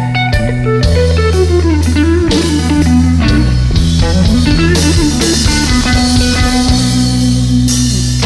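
Blues band music without vocals: a guitar melody sliding and bending in pitch over bass and a drum kit.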